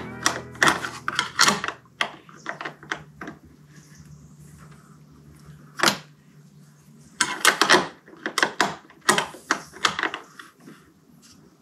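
Hand tools working on metal fittings: bursts of sharp clicks and clanks from a ratchet and spanner while bolts are tightened, with one single knock in between.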